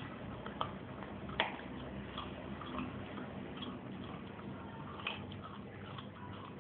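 A dog chewing a raw bone: irregular sharp clicks and cracks of teeth on bone, the loudest about one and a half seconds in, with softer gnawing ticks between.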